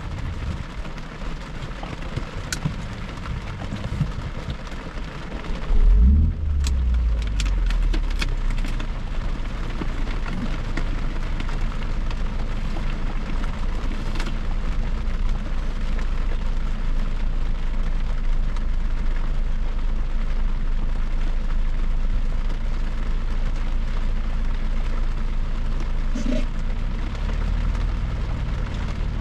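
Road and tyre noise inside a car driving on a highway, a steady rushing hiss over a low rumble. About six seconds in the rumble suddenly gets louder and stays up, with a few short clicks just after.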